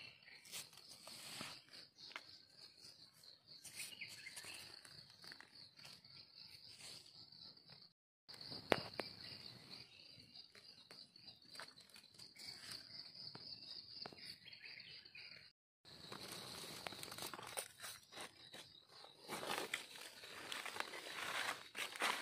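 Insects chirring steadily on one high pitch, with rustling and crackling of dry leaves and twigs as hands work through the leaf litter; the rustling grows louder near the end. The sound cuts out briefly twice.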